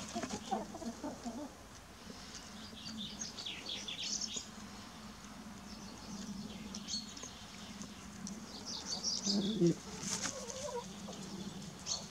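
Chickens clucking in short low calls at the start and again near the end, with small birds chirping high above them throughout.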